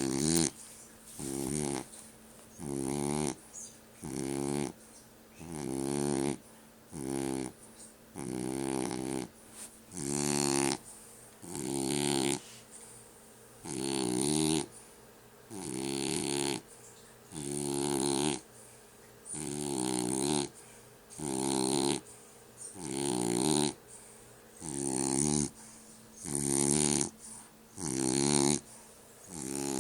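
French bulldog snoring, one snore about every second and a half, each under a second long with a pitched, buzzing tone.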